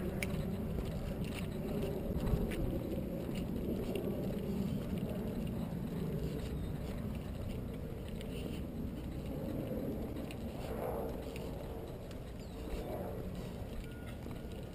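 Steady low outdoor street noise picked up while walking, with a few faint clicks scattered through it.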